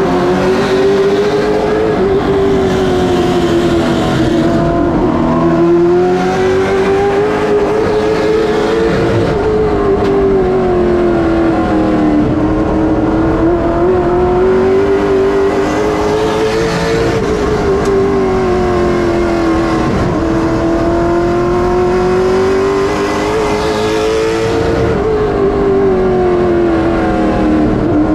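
NASCAR late model stock car's V8 engine heard from inside the cockpit at racing speed. The revs climb along each straight and drop off going into each corner, rising and falling about every seven to eight seconds.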